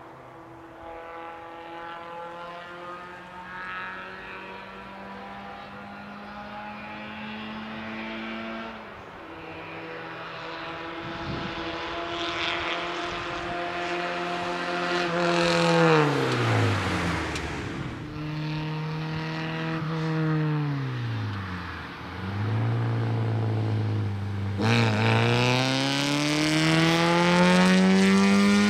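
Fiat 127 race car's four-cylinder engine, getting louder as the car approaches. Its note falls steeply about halfway through and dips again a few seconds later, then climbs hard near the end as the car accelerates down the straight.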